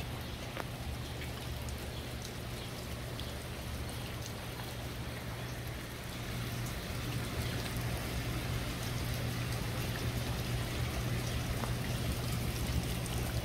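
Pond water trickling and splashing steadily, a little louder after about six seconds, with a low steady hum underneath.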